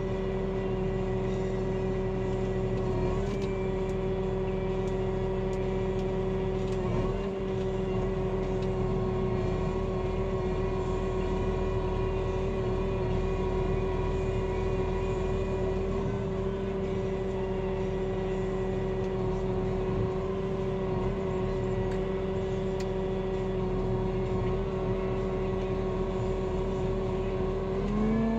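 John Deere tractor's engine and hydraulics running steadily under working load as it powers a Hypro 755 processor limbing a tree, heard from inside the cab. The engine holds an even pitch with a steady whine on top, with only slight dips a few seconds in.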